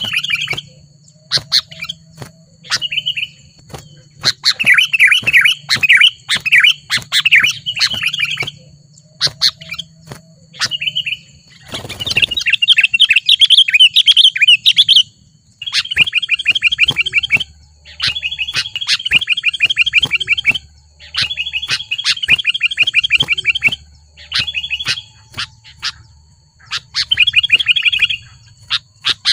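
Sooty-headed bulbul (kutilang) calling hard in repeated runs of fast chirps, each run lasting one to two seconds with short pauses between. This is excited, rival-challenging calling. There is one brief knock about halfway through.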